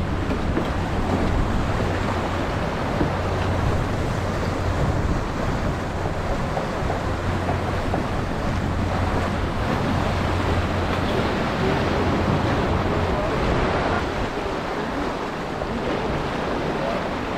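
Water rushing past the hull of a racing keelboat sailing fast downwind, mixed with steady wind rumble on the microphone that eases near the end.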